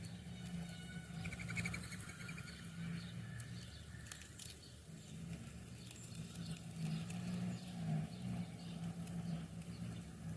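Small birds, likely sparrows, chirping in short bursts, mostly in the first couple of seconds, with scattered light tapping and pattering throughout. A steady low hum runs underneath.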